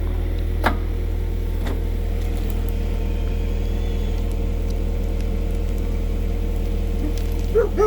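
Komatsu PC120-6 excavator's diesel engine running with a steady low drone, with two sharp clicks about a second apart early on. A dog starts barking right at the end.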